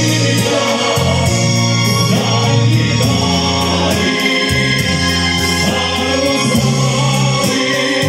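Male vocal quartet singing in harmony through stage microphones, holding long notes.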